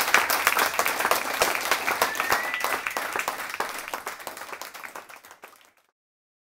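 Concert audience applauding, dense clapping with a brief high whistle about two seconds in. The applause fades away and cuts off shortly before the end.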